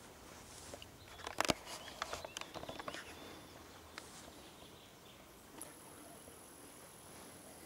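Close rustling and crackling in meadow grass as a red fox cub noses about, with a quick run of sharp clicks about a second and a half in. A thin steady high tone comes in about two-thirds of the way through.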